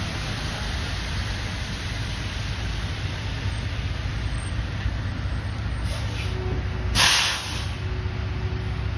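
Tractor-trailer driving past on a rain-soaked road: steady low engine rumble and tyre noise on the wet pavement, with a short, sharp hiss of air brakes about seven seconds in.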